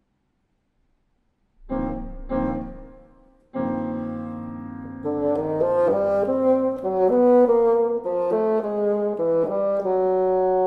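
Bassoon and piano playing. After a short silence, two piano chords are struck and fade. The bassoon then comes in with a long held note and moves into a line of quickly changing notes over a sustained accompaniment.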